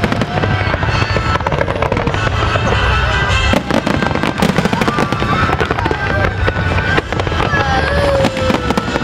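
Fireworks display in full flow: aerial shells and comets launching and bursting, with bangs several times a second and no let-up.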